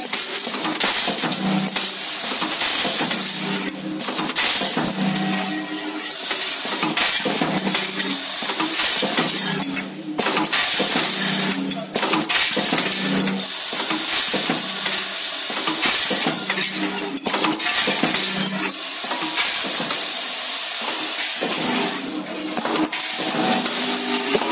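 Packaging machine for small packets running through repeated cycles: bursts of hissing and clattering about every one and a half to two seconds over a steady low hum.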